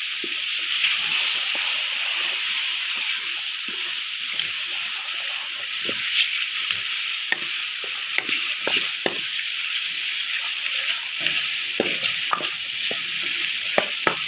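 Diced potatoes frying in oil and spice masala, sizzling steadily, while a wooden spoon stirs them with frequent short scrapes and knocks against the pot.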